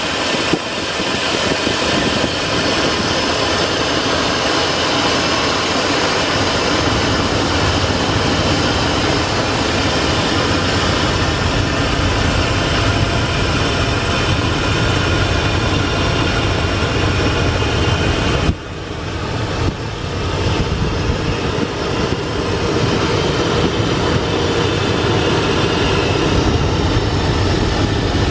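A 2003 Dodge 1500's 5.7 Hemi V8 idling steadily, heard up close under the open hood. The sound dips sharply for a moment about two-thirds of the way through.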